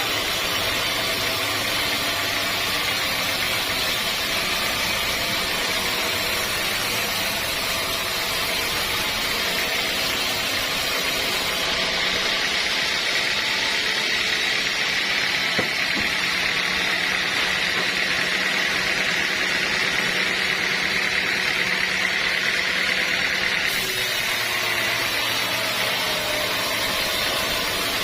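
Sawmill saw machinery running steadily with a constant mechanical drone and low hum. A higher whine comes up in the middle for about twelve seconds, then eases back.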